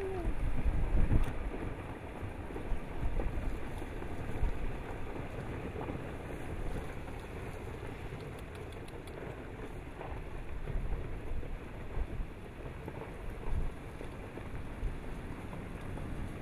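Rock avalanche sliding down a volcano's lava dome: a continuous rumbling rush of tumbling debris with a few faint clicks of rocks. Wind buffets the microphone, loudest in the first second or two.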